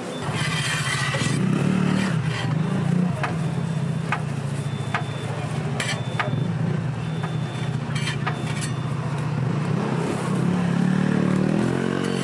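A motor vehicle engine running close by: a steady low hum that swells near the end, with scattered light clicks over it.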